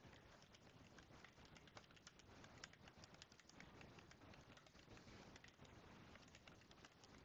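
Faint typing on a computer keyboard: irregular key clicks, several a second.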